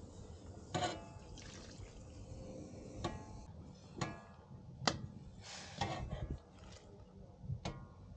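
Cooking utensil knocking against a metal pot about five times, each clink leaving a short ring, with a brief splash of liquid a little past the middle.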